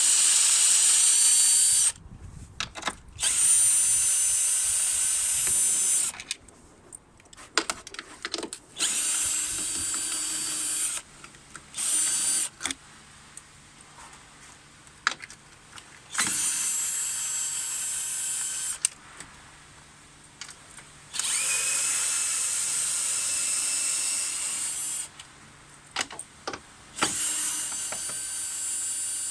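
Handheld electric drill-driver run in about six separate bursts of a few seconds each, a high whine that spins up as each run starts, with short pauses and small clicks between, as fasteners are run out to take off the damaged undertray.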